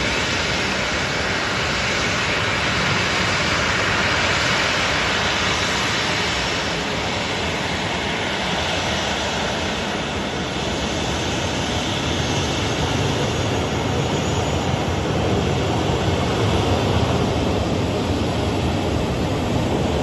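Boeing 737 airliner's jet engines running at taxi power: a steady rushing noise that grows deeper and slightly louder in the second half as the plane draws closer.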